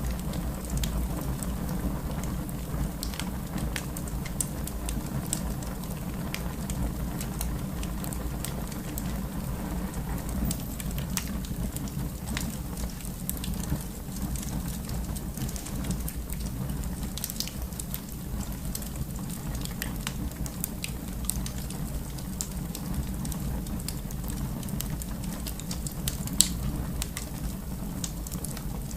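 Wood fire crackling in a fireplace: a steady low rumble of flames with frequent small pops and snaps, and one sharper pop near the end.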